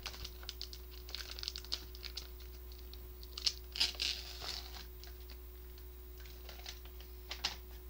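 Packaging of an instant rice-noodle cup crinkling and tearing as it is peeled apart by hand, in a string of short crackles that are loudest from about three and a half to four and a half seconds in.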